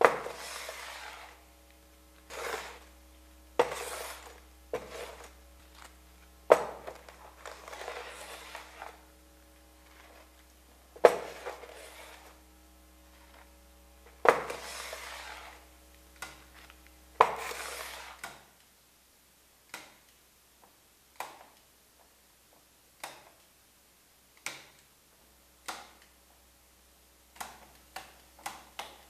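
Hard objects clanking and clattering in irregular loud strikes, each with a short rattle after it, over a steady low hum. After about 18 seconds the hum stops and only sparse, quieter sharp clicks remain, bunching together near the end.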